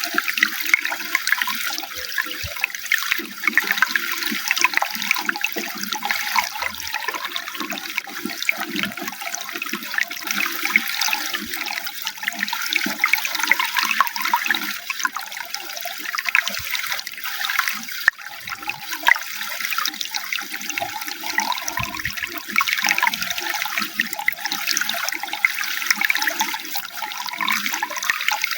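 Running water splashing steadily, without a break.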